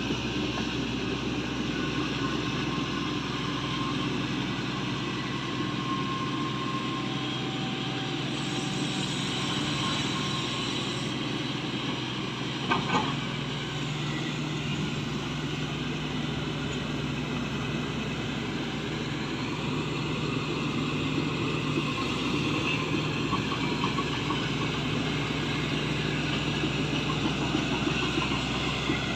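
Shantui excavator's diesel engine running steadily under work, with a brief double clank about 13 seconds in.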